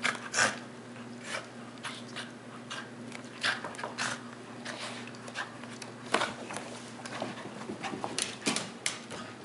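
Scottish terrier and cat play-fighting on carpeted stairs: irregular short scuffles and bumps of paws and bodies, several a second, with a few louder ones.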